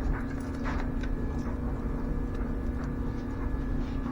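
Smoke-test machine's air pump running with a steady hum, feeding smoke into the engine's intake to find a very small vacuum leak, with a few faint ticks.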